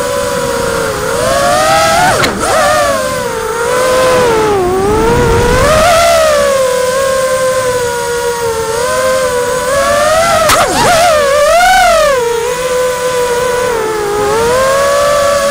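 FPV quadcopter's electric motors and propellers whining, heard from the onboard camera. The pitch rises and falls with the throttle, with sharp quick swoops about two seconds in and again near ten seconds.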